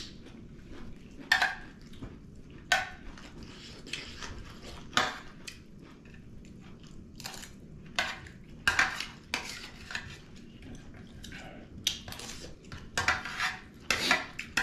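Metal spoon clinking and scraping against a stainless steel dinner plate in irregular strokes, busier near the end.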